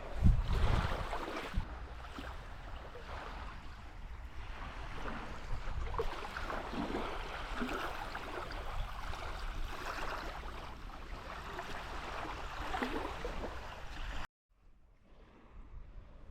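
Surf washing on a beach with wind buffeting the microphone, gusting hardest about a second in. The sound cuts off abruptly near the end and comes back much fainter.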